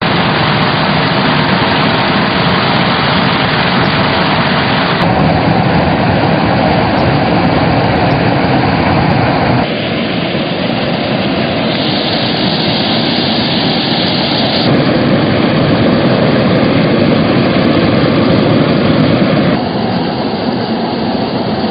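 Hot-air balloon propane burner firing, a loud steady rushing noise. It changes abruptly several times as the shots change.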